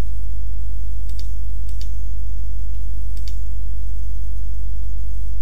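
Computer mouse clicking: three pairs of quick clicks, about a second in, near two seconds and just past three seconds. Under them runs a steady low hum.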